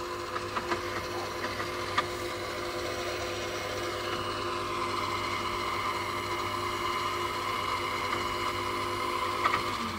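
Electric winch on a pickup's front bumper running steadily, its motor whining as it pulls in the cable; it stops just before the end.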